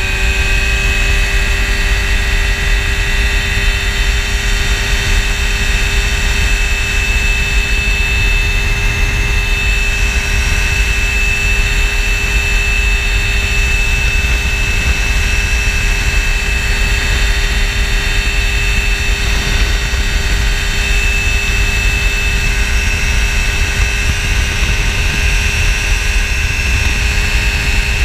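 Phantom X1 ultralight's engine and propeller running steadily in cruise flight, with a slight rise in pitch in the first second. Heavy wind noise buffets the cockpit microphone.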